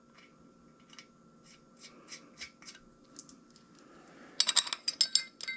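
Faint clicks and rubbing as a steel cam thrust plate and its gasket are fitted by hand against a cast-iron engine block. About four and a half seconds in, a clatter of small metal clinks and rattles begins as the bolts for the plate are handled.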